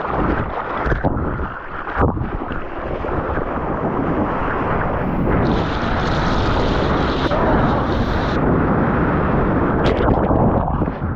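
Water rushing and splashing around a surfboard, with wind buffeting the microphone. A brighter hiss of spray joins for about three seconds midway, and near the end come a few sharp splashes in whitewater.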